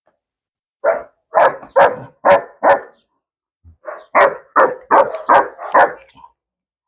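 Young Belgian Malinois barking: a quick run of about five barks, a pause of about a second, then about five more.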